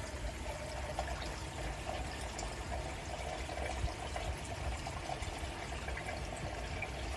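Water pouring and trickling steadily into a small koi pond where the return flow splashes onto the surface.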